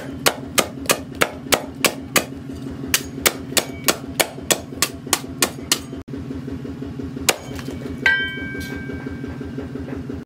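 A steel cleaver forged from a disc-plough blade chopping through a stalk onto a wooden block, quick chops about three a second. After a pause there is one more chop, then a sharper metallic hit with a ring that hangs on for about two seconds. A steady low hum runs underneath.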